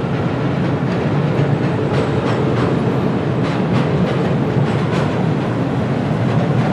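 Train running on rails: a steady rumble with the sharp clicks of wheels passing over rail joints, coming at uneven intervals.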